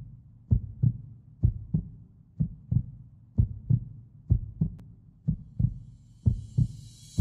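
Heartbeat sound effect: steady lub-dub double thumps, about one pair a second.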